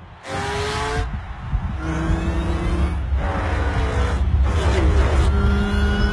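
Race car engines passing one after another, each pass dropping in pitch as it goes by, over a steady low rumble of engines.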